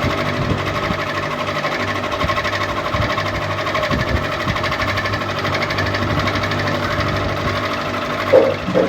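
Ceiling fan running with a steady mechanical hum and a fast, even flutter. A couple of short louder sounds come near the end.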